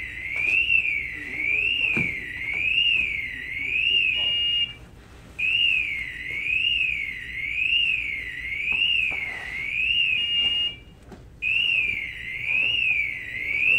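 Loud electronic alarm warbling up and down in pitch about once every 0.7 s, interrupted twice by a brief steady beep and a short break before resuming.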